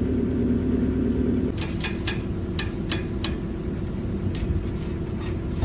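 Skidloader engine running steadily. One of its tones drops away about a second and a half in, and a quick run of sharp clicks or clanks follows.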